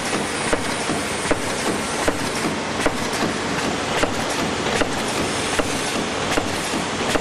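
Multi-track sachet packing machine running: a steady mechanical clatter with a sharper click recurring a little under once a second.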